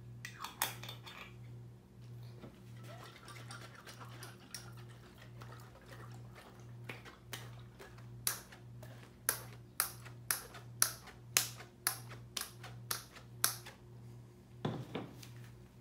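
Liqueur sloshing and slapping inside a capped one-gallon glass jug as it is shaken to mix in the flavoring: a regular run of sharp knocks, about two to three a second, louder in the second half.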